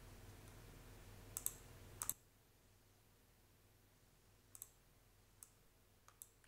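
Faint recording noise floor from a lavalier microphone through a USB sound adapter turned up to full gain: a low hum and soft hiss that cut off about two seconds in. Computer mouse clicks sound twice just before the cutoff, then several more quiet clicks follow.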